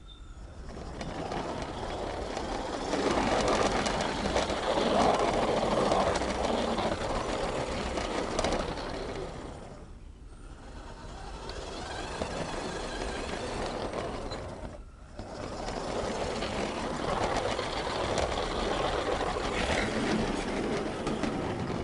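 Model garden-railway train running along its track, heard close up from on board as a continuous rattle and rumble of wheels and running gear on the rails. The noise swells and fades, and drops away briefly about ten seconds in and again around fifteen seconds.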